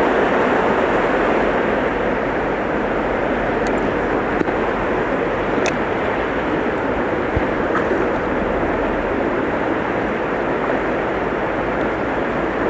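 Steady rushing of fast-flowing river current along the bank, an even noise that does not change, with two faint ticks near the middle.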